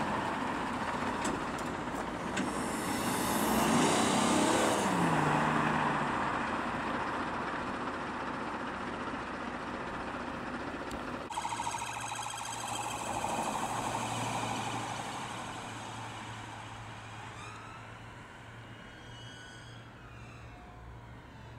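Police cars passing at speed under blue lights, engine and tyre noise swelling and dropping in pitch as one goes by. Later a wailing siren rises and falls, fading away.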